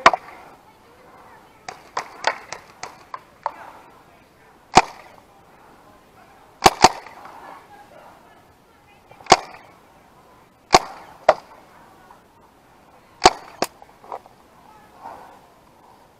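Paintball markers firing: sharp single pops at irregular spacing, a quick string of about three a second early on, then louder single shots every couple of seconds, some in close pairs.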